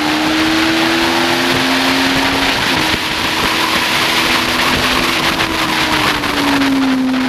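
2007 Yamaha FZ6N's inline-four, fitted with a Leo Vince exhaust, running at high revs under steady throttle, with heavy wind rush over it. The pitch climbs gently over the first two seconds, holds, and drops back a little near the end.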